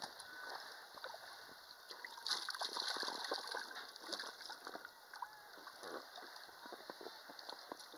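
Small irregular splashes of water around an inflatable swim ring with a child sitting in it, louder and busier from about two to three and a half seconds in.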